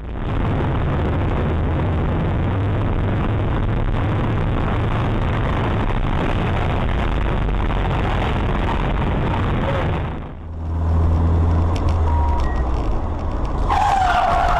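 Steady road and engine noise of a car driving through a tunnel, heard from inside the car. About ten seconds in it gives way to a different car's engine hum, with a short beep and a falling tone near the end.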